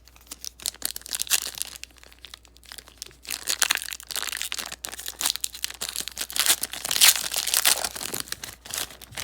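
Trading-card pack wrapper being torn open and crinkled in the hands, a dense run of loud crackling and rustling with many sharp crackles.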